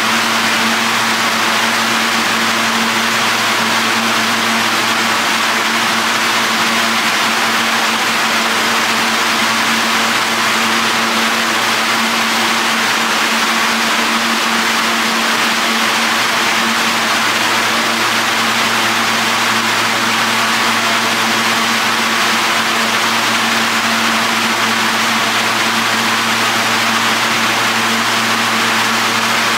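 An R160 subway train standing at the platform with its doors open, giving off a steady hum with a few held tones under an even hiss, unchanging throughout.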